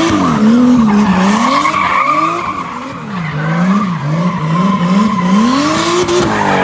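Turbocharged M52 straight-six in a BMW E30 drift car, its revs rising and falling repeatedly, with tyres squealing steadily as the car slides.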